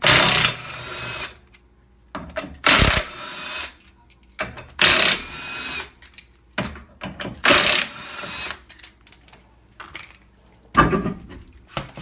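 Cordless impact wrench with a socket running in four bursts of about a second each, roughly every two and a half seconds, as it spins off the lug nuts of a Geo Metro rear wheel; a shorter burst follows near the end.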